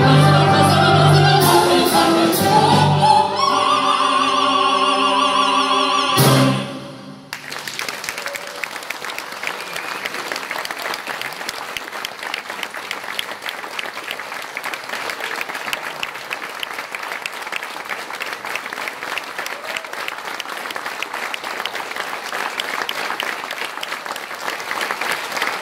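The final held chord of a tenor and mezzo-soprano duet with choir and wind band, with one voice climbing to the top note. All parts cut off together about six seconds in. Then audience applause, steady to the end.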